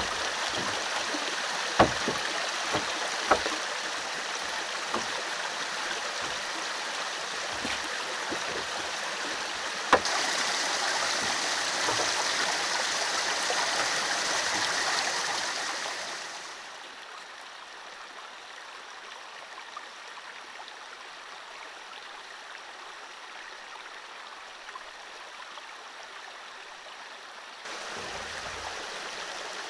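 Stream water running steadily under a wooden deck, with a few sharp knocks of pine boards being handled and set down in the first ten seconds. The rushing drops quieter about halfway through.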